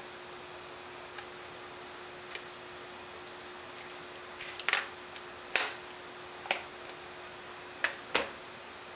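A few irregular sharp clicks and ticks: one about a second in, another near two and a half seconds, a quick cluster around four and a half seconds, then single clicks at uneven gaps to near the end. A steady hiss and a faint low hum run underneath.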